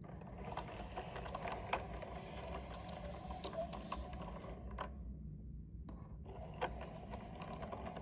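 Handling noise from unboxing a keyboard: many small, sharp plastic clicks and light rustling, with a short lull about five seconds in.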